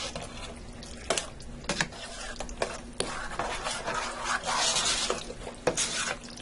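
A spoon stirring thick meat sauce in a stainless steel 5-quart Dutch oven. The sauce makes wet scraping and squelching noises, and the spoon clinks against the pot's side several times.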